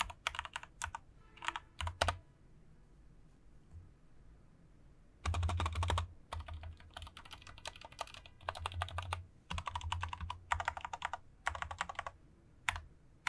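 Typing on a Dareu A87 mechanical keyboard with Cherry MX switches: quick runs of keystroke clicks, broken by a pause of about three seconds after the first two seconds, then a single keystroke near the end.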